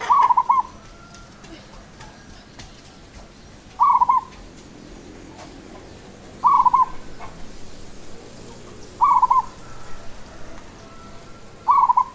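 Zebra dove (perkutut) singing: five short, rolling coo phrases, one about every three seconds.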